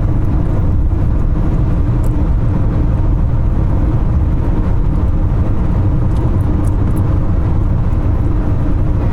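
Steady road noise inside a moving car's cabin: an even low rumble of tyres and engine at cruising speed.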